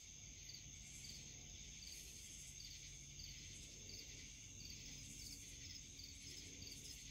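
Faint night insects: crickets chirping in short chirps about twice a second over a steady high-pitched insect trill.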